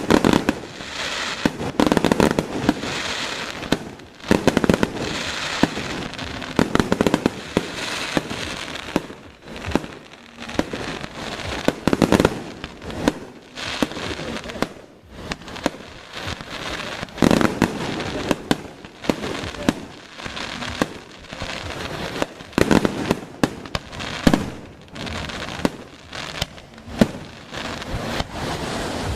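Fireworks going off continuously: many sharp bangs and crackling bursts in quick succession, some louder shells standing out every few seconds.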